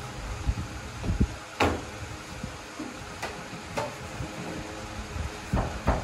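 Sharp, irregular taps of a hand-held bread stamp pricking patterns into Uzbek flatbread dough on a cloth-covered table, about seven in all, over a steady low hum.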